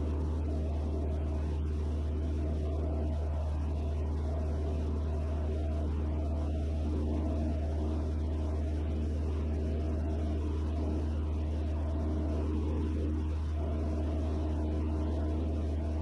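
Steady drone of a Van's RV-6A's piston engine and propeller in flight, heard inside the cockpit: a strong low hum with several steady tones over it, unchanging throughout.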